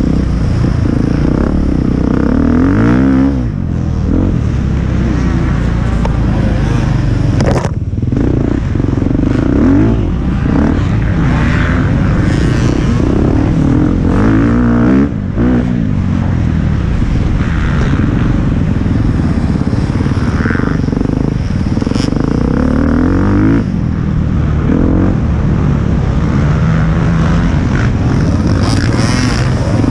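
Enduro motorcycle engine ridden hard over a muddy track, heard close up from on the bike, its revs rising and falling again and again as the rider works the throttle, with a few brief cuts in the throttle.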